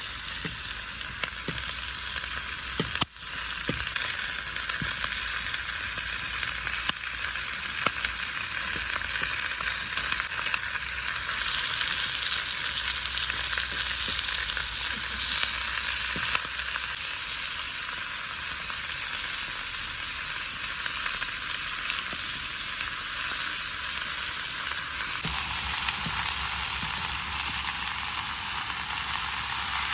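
Food frying and sizzling in a hot pan: a steady sizzle with small pops and crackles. It breaks off for a moment about three seconds in, and its tone shifts abruptly near the end.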